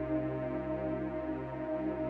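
Ambient synthesizer drone music: a held chord of many steady tones over a low bass that swells and dips about once a second.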